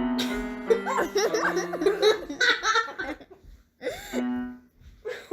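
Laughter in short bursts over background music with long held notes.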